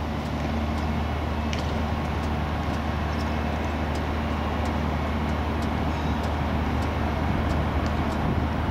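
Large diesel engine of a Liebherr 995 dredging excavator running steadily, a constant low drone with a few higher tones above it.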